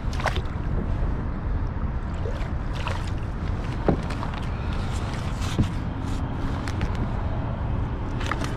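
Steady low rumble of wind and water around a fishing kayak, with scattered small clicks and a couple of short knocks about four and five and a half seconds in.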